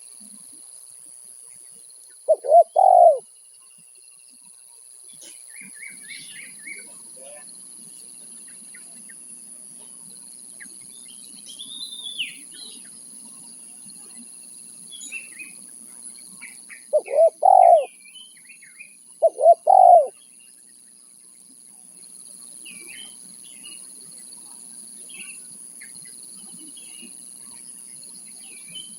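Spotted dove (tekukur) cooing: three short multi-note phrases, one about two seconds in and two close together about two-thirds of the way through. Small birds chirp faintly between them over a steady high hiss.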